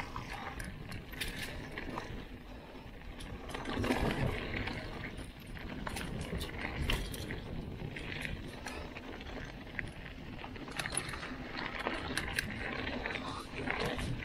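Mountain bike rolling fast downhill on a dirt trail: tyre noise over dirt and dry leaves under a constant low rumble, broken by frequent sharp clicks and rattles as the bike hits roots and rocks.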